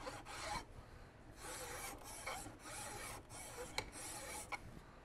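Steel file rasping across a rifle's wooden stock in a run of push strokes, about one a second, taking the wood down by hand to fit the metal.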